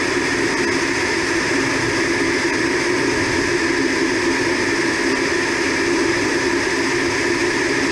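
Aircraft engines in flight: a steady drone with several held tones, heard from aboard an aircraft flying alongside.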